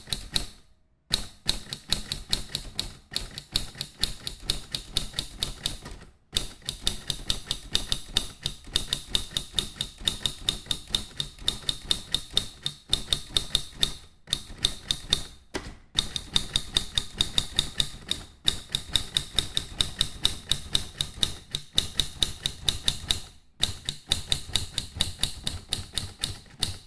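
Typewriter keys being struck in fast, steady runs of sharp clacks, several a second, broken by a few brief pauses. The typing stops abruptly at the end.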